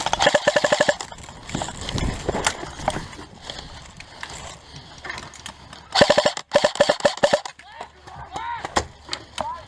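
Airsoft rifle firing full-auto bursts, a fast even rattle of about ten shots a second: one burst just after the start and two more about six seconds in.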